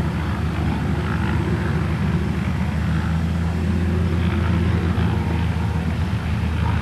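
Light propeller airplane's engine running steadily, a constant low drone.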